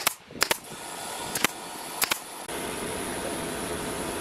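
A few sharp clicks in the first two seconds over a steady machine whir, which becomes steadier and a little louder about halfway through.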